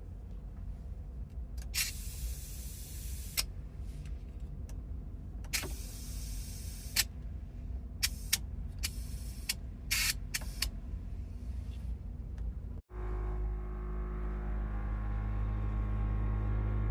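Air-ride suspension on a vehicle: several short hisses of air as the airbag controls are worked, over a low hum. Near the end the air compressor starts running with a steady drone that grows louder.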